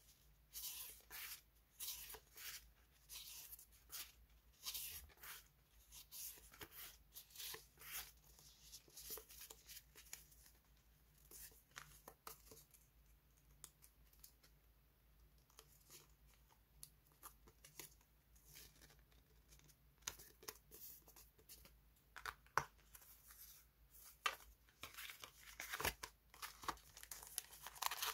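Faint paper rustling and crisp handling noises from die-cut paper sticker flakes being shuffled, picked at and peeled. The strokes come thick and fast at first, thin out in the middle and pick up again near the end as a sticker pack is handled.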